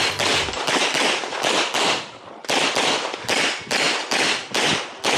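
Pistol shots from a Limcat .40 competition pistol, fired rapidly in a string at about three shots a second, each with a short echo. There is a brief pause about two seconds in before the shooting resumes.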